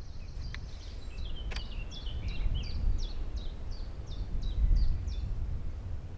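Wind rumbling and gusting over the microphone, with a songbird singing a run of about ten short, falling high notes, roughly three a second. A single sharp click comes about a second and a half in.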